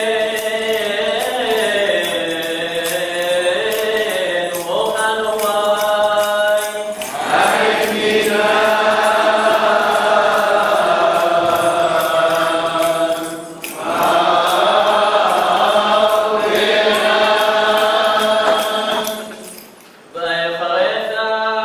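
Liturgical chant: a voice sings long, drawn-out melodic phrases, with three short breaths or pauses, a little after 7 seconds in, near the middle and near the end.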